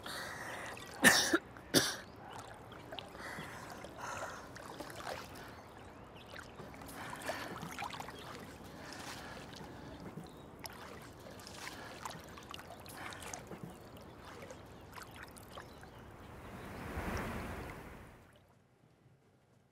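A man coughs sharply twice about a second in, then water laps and trickles gently against a small wooden rowboat. A soft swell of noise rises and fades near the end before the sound drops to near silence.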